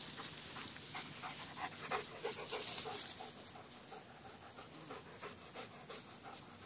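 A dog panting, faint quick breaths about three a second.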